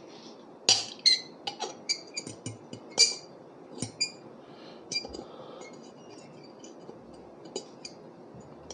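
Metal fork clinking and scraping against a ceramic plate as it is twirled, as if winding spaghetti. An irregular run of sharp, ringing clinks, quick and close together at first, then sparser.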